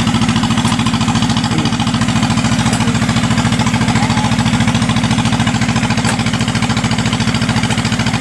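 Rice combine harvester's diesel engine running steadily under load as the machine crawls on its tracks over ramps, with a fast, even chugging beat.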